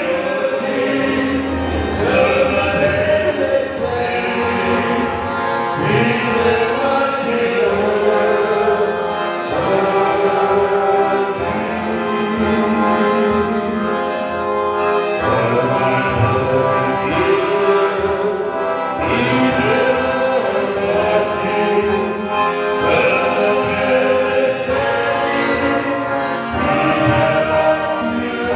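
Men's voices singing a Ukrainian song, accompanied by a piano accordion that plays steadily underneath.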